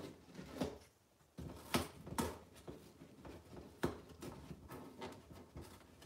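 African grey parrot chewing and tearing at the edge of a cardboard box with its beak: irregular short crackles and rips, about seven of them, the loudest about two seconds in.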